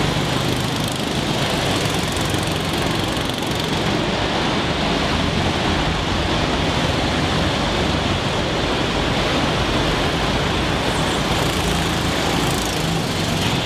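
Go-kart engines running steadily as karts lap an indoor track.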